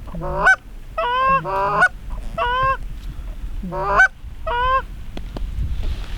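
Goose honks: about six short calls, each rising sharply in pitch, in uneven groups over a few seconds.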